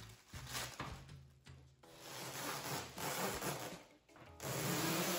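Clear protective plastic film crinkling and rustling as it is peeled and bunched off a corrugated roof panel, in three swells, with background music underneath.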